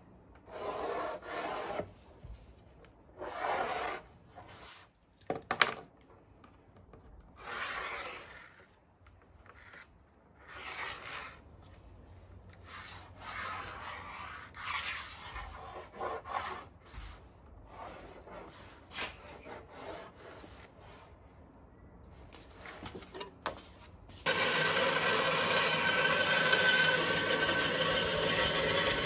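Pen strokes scratching across a plywood sheet, in short irregular runs. About 24 seconds in, a bandsaw starts cutting plywood, loud and steady with a constant whine.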